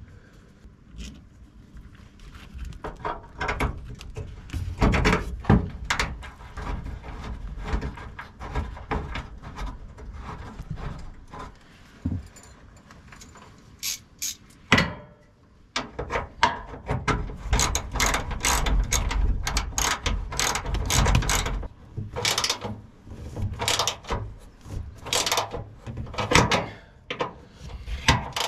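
Clicks of a ratchet wrench and knocks of metal tools as a ground wire's ring terminal is bolted to the frame under a truck bed. The clicks are sparse at first and come thick and fast through the second half.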